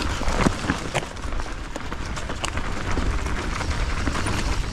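Mountain bike descending a dirt trail at speed: tyres rolling over the rough ground with a steady rumble and hiss, broken by frequent clicks and knocks from the bike rattling over roots and bumps.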